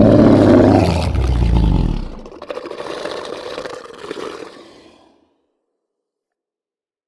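Designed monster roar sound effect: a loud, deep creature roar with a heavy low rumble for about two seconds, which then trails off into a weaker, thinner tail that dies away about five seconds in.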